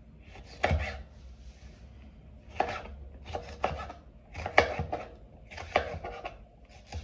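Kitchen knife chopping a yellow bell pepper into cubes on a white cutting board: irregular knocks of the blade striking the board, some coming in quick pairs or threes.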